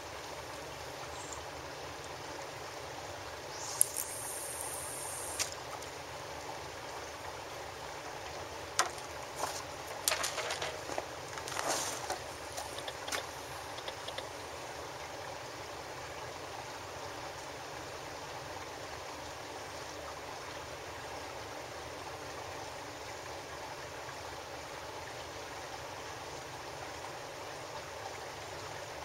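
Clicks and rattles of fishing tackle being handled, clustered in the middle of the stretch, over a steady soft wash of seawater along the quay. There is also a short high hiss about four seconds in.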